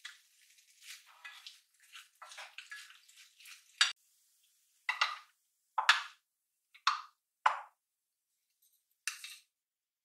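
Kitchen utensils and containers being handled beside a frying pan. Soft scraping and rustling come first, then a series of about six sharp clinks and taps as jars and bowls are picked up and set down.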